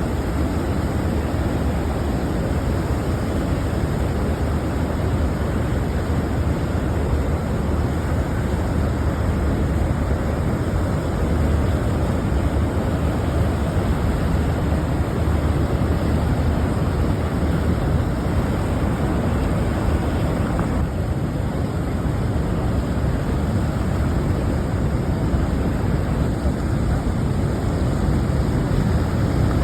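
Niagara Falls: a steady, heavy rush of falling water, deep and unbroken.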